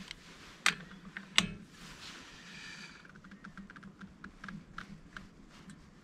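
Metal hand-tool clicks and knocks while a pulley is tightened onto the shaft: two sharp knocks in the first second and a half, then a run of light quick ticks, about five a second.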